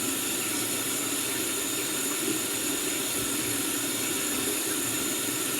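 Water running, a steady hiss with no break.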